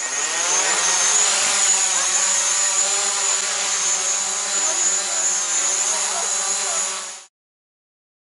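Quadcopter drone taking off and hovering close by, its propellers and motors making a steady high-pitched whine. It cuts off suddenly about seven seconds in.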